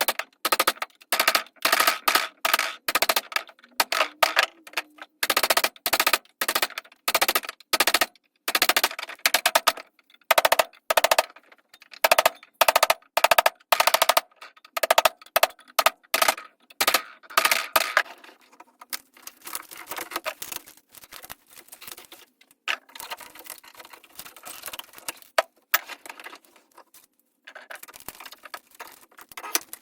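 Rapid, irregular metal-on-metal clanking and knocking with a ringing tone, several strikes a second, thinning out to sparser, quieter knocks about two-thirds of the way through.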